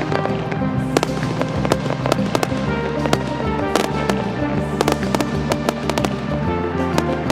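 Fireworks going off in quick succession, a dense run of sharp bangs and crackles, over music playing at the same time.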